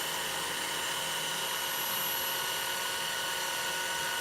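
Kreg power tool motor running at a steady speed with an even high-pitched whine, as the tool is fed slowly into the work.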